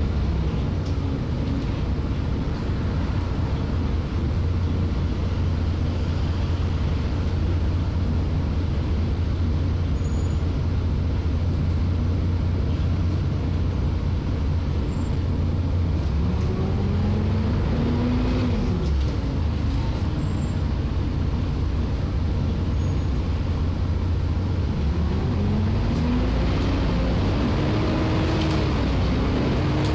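Volvo B7TL double-decker bus's six-cylinder diesel engine running under way, a steady low drone heard from the upper deck. Its note rises and falls in pitch a few times about halfway through and again near the end.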